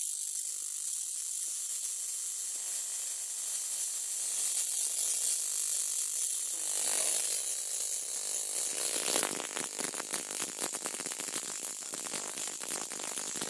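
Energised home-built high-voltage transformer rig giving a steady high hiss. About nine seconds in it breaks into dense, rapid crackling that lasts until near the end.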